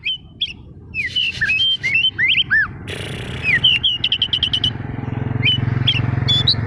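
Oriental magpie-robin (white-bellied 'kacer dada putih') in full song: a fast, varied run of short rising and falling whistles mixed with harsh scratchy notes, with a quick rattling trill about three and a half seconds in. A low rumble builds underneath in the second half.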